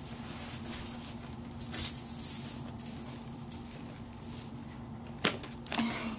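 A kitten rummaging in a nylon tote bag full of papers: uneven rustling and crinkling, louder about two seconds in, with a few sharp clicks near the end.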